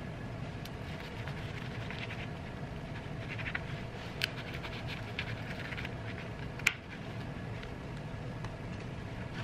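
A kitchen knife sawing through the crisp crust of a sourdough loaf on a plastic cutting board, with scratchy crackling crunches and two sharp clicks about four and seven seconds in.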